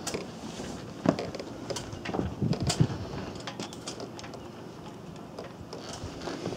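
Irregular footsteps and small knocks on a small yacht's fibreglass deck, with sharp clicks clustered in the first three seconds and fewer after that.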